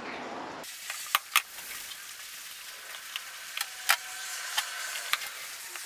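Scattered sharp metal clicks and clinks of a ratchet and socket unbolting a VW Beetle's gear-shift lever, over a steady hiss. The loudest two come close together about a second in.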